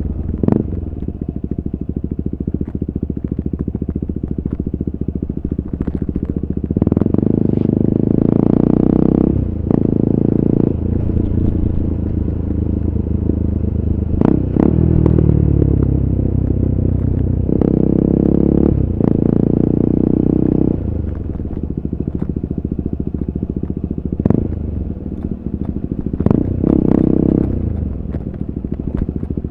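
KTM RC 390 single-cylinder engine through an Akrapovic exhaust, ridden on the road: the engine pulls hard under throttle in several surges and drops back between them, its pitch falling as it slows, with a few sharp clicks.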